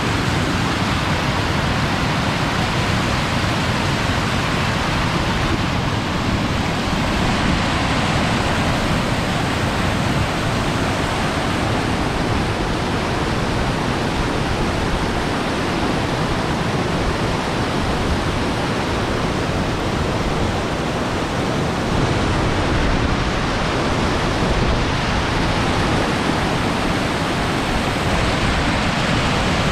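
The Grand River rushing steadily: a loud, even roar of fast-flowing water.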